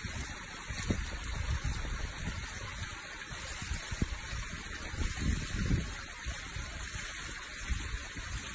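Steady rushing noise of a river flowing through a canyon.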